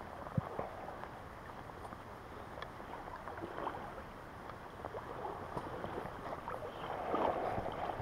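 River water sloshing and splashing, with scattered small knocks and a louder stretch of splashing near the end.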